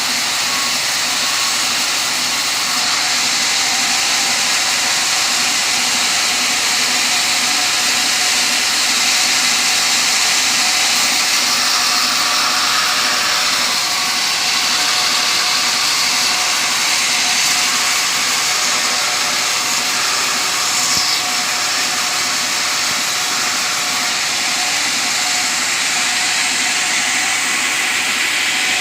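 Sawmill running steadily while sawing teak timber into beams: a loud, continuous machine noise that barely changes.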